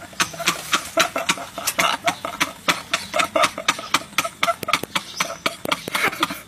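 Two men laughing hard in quick short bursts, with wheezy, gasping breaths between them.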